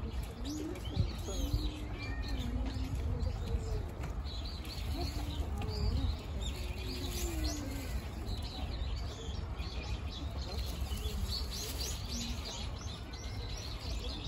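Small birds chirping: many short, high calls, thicker near the end, over a steady low background rumble.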